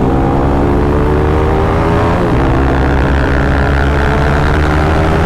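Single-cylinder sport motorcycles with Akrapovic aftermarket exhausts running while being ridden at a steady pace. About two seconds in, the engine note dips briefly and then picks up again.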